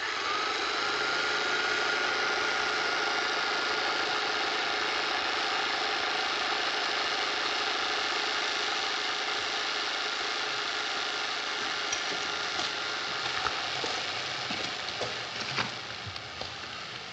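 Loud, steady mechanical running noise, like a motor or machine, cutting in sharply after silence, with a thin steady whine that stops about 13 seconds in. A few irregular knocks come near the end.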